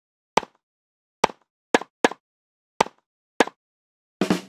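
Six short cartoon pop sound effects, one after another at uneven spacing, then a quick double pop near the end; they match the six letters of "DOKKYO" popping onto the screen.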